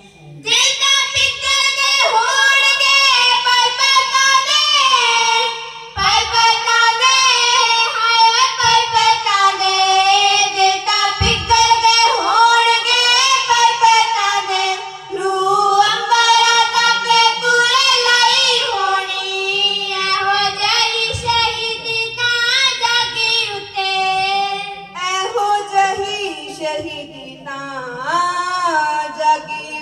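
Kavishri, a Punjabi ballad style, sung loudly by young voices together into microphones. The high, ornamented melody glides between notes and pauses briefly between lines.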